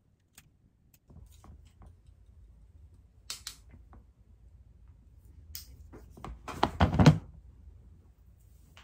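A hair curling iron being handled: scattered light clicks and knocks, with a cluster of louder knocks about seven seconds in.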